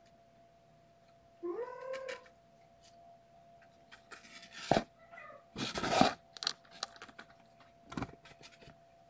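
A young kitten meows once, its pitch rising and then held, followed by several loud rustling and bumping noises as kittens scramble about on their bedding.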